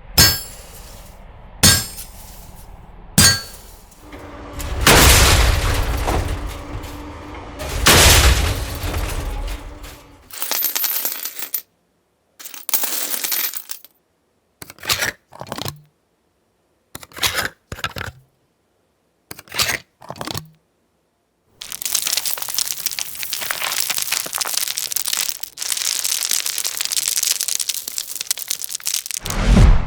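A run of separate Foley sound-effect samples, such as impacts and breaking and clinking objects: three sharp hits in the first few seconds, longer noisy sounds, a string of short clips with silences between, then about eight seconds of dense continuous noise near the end.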